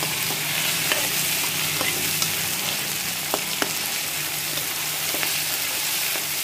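Chopped tomatoes, onions and green chillies sizzling in oil in a metal kadai, the tomato-onion masala base frying until the tomatoes turn soft. A metal spoon stirs and scrapes through it, giving a few scattered clicks against the pan.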